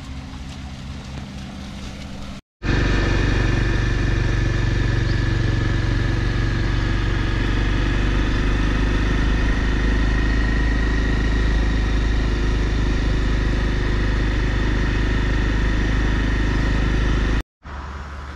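Honda CRF250L single-cylinder motorcycle engine running while being ridden. The sound is steady and gets much louder about two and a half seconds in. It cuts out abruptly for a moment at that change and again near the end.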